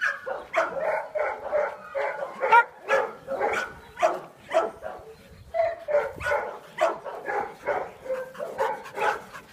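Several dogs barking excitedly, a rapid, unbroken run of short barks and yaps at about two or three a second.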